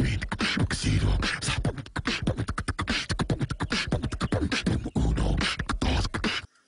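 A man's voice shouting 'Move!' over and over in a rapid-fire stream of short, punchy shouts, cutting off abruptly near the end.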